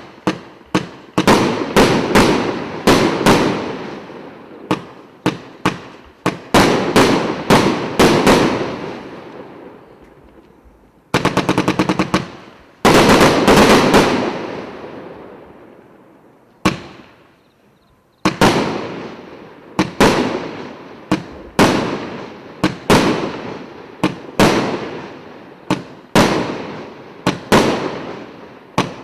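A multi-shot 'Zeppelin' firework battery firing in volleys: sharp bangs, each with a trailing rumble. About eleven seconds in comes a quick string of small crackling pops, then a dense cluster of bursts. In the second half the shots come at a steady pace of a little over one a second.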